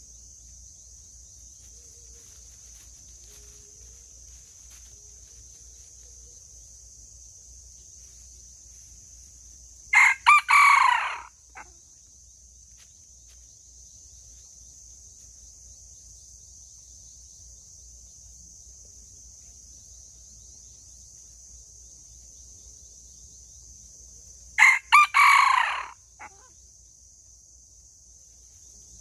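A red junglefowl rooster crows twice, about ten seconds in and again some fifteen seconds later, each crow short (about a second and a half) and loud. A steady high insect drone runs underneath.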